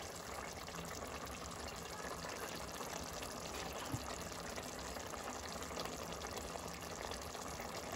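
Pot of aloo keema curry simmering on low heat: a steady faint bubbling and hiss of the gravy, with a faint low hum underneath and a light tap about four seconds in.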